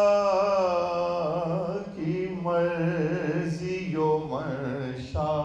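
Man reciting Urdu devotional verse in tarannum, the sung style of poetry recitation, holding long, wavering notes over several phrases.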